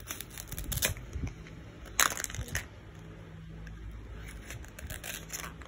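Plastic toy fruit being cut apart with a toy knife: the Velcro joining the halves tears with a loud short rasp about two seconds in, among lighter plastic clicks and scrapes.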